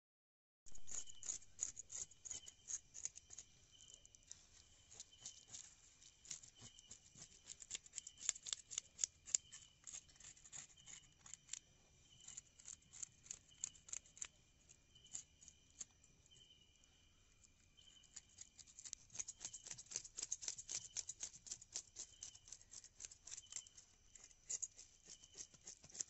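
Faint night insects: a steady high trill with a chirp pulsing about once a second, over dense irregular high-pitched clicking that thickens in two stretches.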